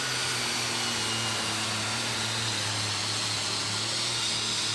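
Super stock pulling tractor's turbocharged diesel engine running steadily, with a strong, even hiss over its low tone.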